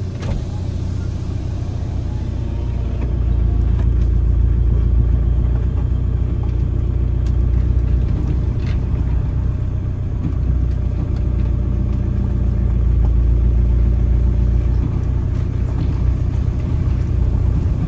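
Camper van's engine running as the van is driven slowly a short distance, a steady low rumble, with a steadier hum joining for several seconds in the middle.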